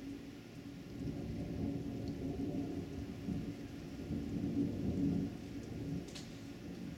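Thunder rumbling low and long over heavy rain: the rumble builds about a second in, is loudest around five seconds and eases near the end.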